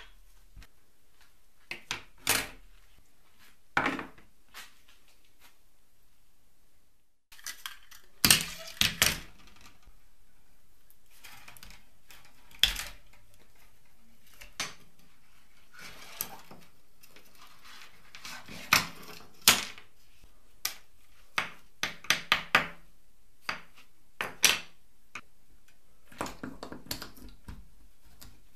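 A few light knocks of small painted toy-car parts being set down on a wooden bench, then many sharp clicks and scrapes of a screwdriver prying apart the old plastic control handle of a cable-operated toy car, with its gear and spring mechanism inside.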